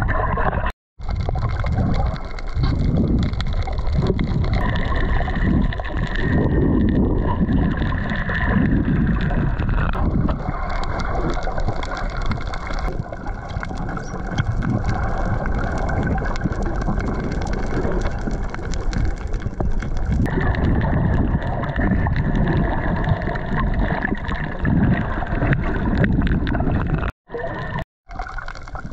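Water gurgling and sloshing against the camera housing, with a heavy low rumble that surges and eases. It drops out abruptly for a split second about a second in and twice near the end.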